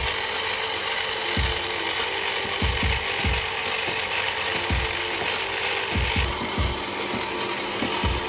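Water from a hose pouring and splashing steadily onto chopped rice straw in a plastic tub, washing the straw, with occasional low thumps. The hiss thins a little about six seconds in.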